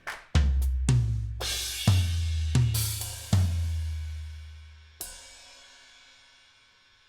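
Electronic drum-kit sounds from a DAW, played by hand in an uneven run of kick, snare and cymbal hits over a long, deep bass boom. A final crash about five seconds in rings away to near silence.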